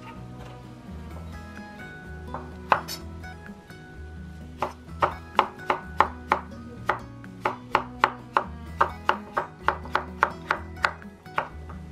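Chef's knife slicing cucumber on a bamboo cutting board: one knock, then a steady run of about three chops a second, each blade stroke knocking on the board, stopping shortly before the end. Background music plays under it.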